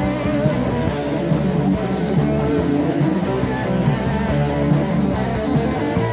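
A heavy metal band's 1986 demo recording: electric guitar over bass and drums, with evenly spaced cymbal strikes about two to three times a second keeping the beat.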